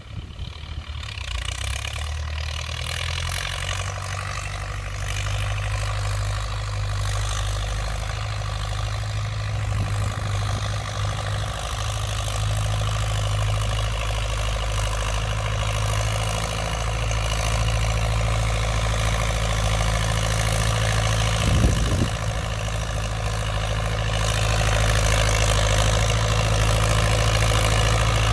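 Diesel engine of a Belarus MTZ tractor running steadily under load while tilling soil, growing louder as the tractor comes closer. One brief knock about three quarters of the way through.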